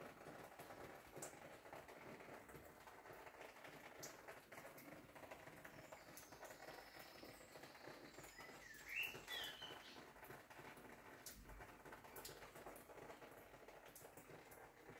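Faint outdoor ambience: a soft, even patter with scattered light ticks, and a short bird chirp that rises and falls in pitch about nine seconds in.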